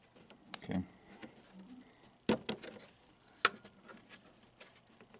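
A few light, sharp clicks and taps: hands handling the plastic Jones plug connectors and wiring of an electromechanical pinball machine.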